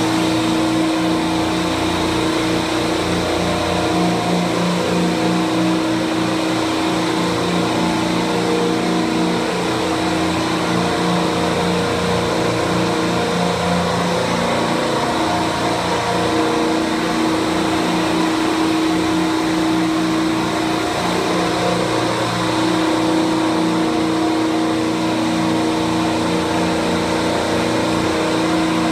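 A rack of Copeland refrigeration compressors running together: a loud, steady mechanical hum with several held tones, one of them a strong mid-low drone.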